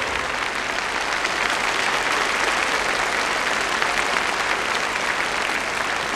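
A large audience applauding: steady, dense clapping.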